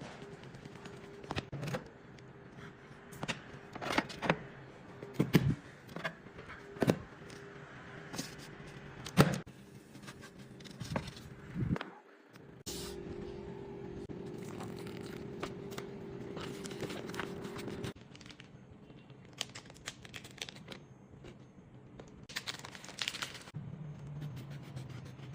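Food-preparation handling noises: scattered knocks and clicks with scraping and rustling. A steady hum starts about halfway through and cuts off about three quarters of the way in.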